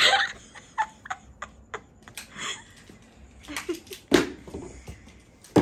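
Irregular knocks and clatter of a small child's oversized leather boots clomping and scuffing on a hard tile floor, with two sharp thuds, one about four seconds in and one at the very end.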